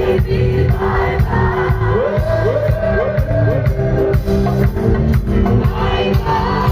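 Live rock band playing loud over a concert PA, with singing, heard from the audience; about two seconds in a short sliding melodic phrase repeats five times.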